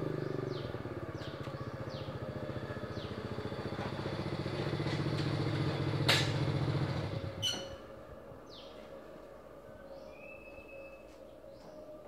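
A small engine running with a fast, even pulse. It grows louder, then fades away about seven and a half seconds in. A sharp click comes about six seconds in, and birds chirp throughout.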